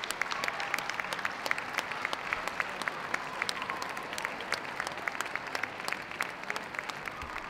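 Audience applauding: many hands clapping steadily, a dense run of overlapping claps.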